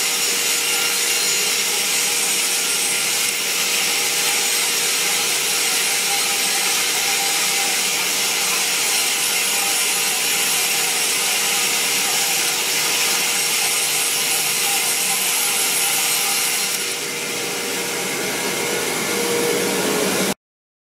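HB 800H vertical band saw ripping a wooden board lengthways as it is fed past the blade: a steady, loud hiss of the blade through the wood over a steady machine hum. It eases a little near the end and then stops abruptly.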